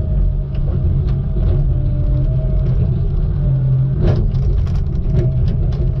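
Tigercat knuckleboom log loader's diesel engine and hydraulics running steadily under load, heard from inside the cab, as the grapple handles logs. Several sharp knocks of wood and steel, the loudest about four seconds in.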